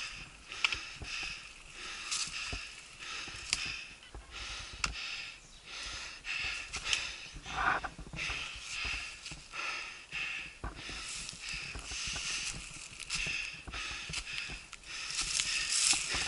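Mountain bike riding down a dirt singletrack: tyre noise over dirt and leaf litter with frequent clicks and knocks as the bike and camera jolt over bumps, and a brief squeak about halfway through. It grows louder near the end.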